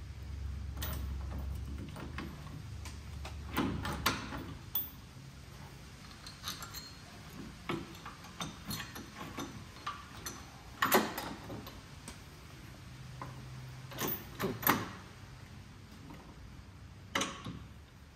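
Metal tools and bolts clinking and knocking as a steel puller tool is fitted and adjusted by hand against a VW Beetle engine's flywheel: a handful of sharp clanks, some in quick pairs, spaced irregularly, over a low hum that stops about four seconds in.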